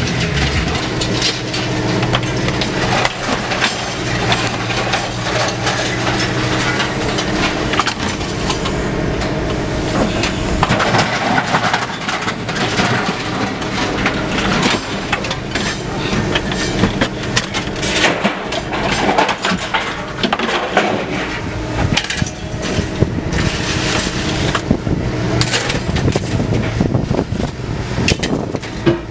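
Scrap metal clattering and crunching in a long irregular run of impacts as a load is unloaded, over a steadily running engine.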